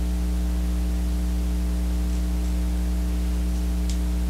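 Steady electrical mains hum, a low buzz with several overtones, unchanged throughout. A faint click of a plastic toy joint being turned comes near the end.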